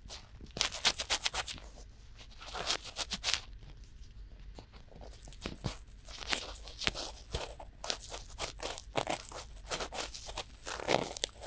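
Cotton swabs rubbing and scraping inside both silicone ears of a binaural microphone at once: close, crackly, scratchy strokes in quick bunches, with a short lull a few seconds in.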